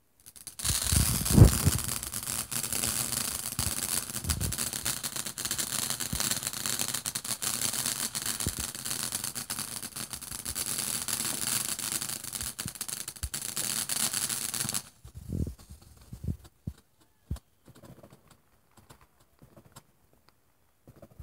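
Ground fountain firework spraying sparks: a steady hiss with dense crackling that starts about half a second in and cuts off suddenly near fifteen seconds. There is a thump just after it starts, and a few faint pops and clicks follow the cut-off.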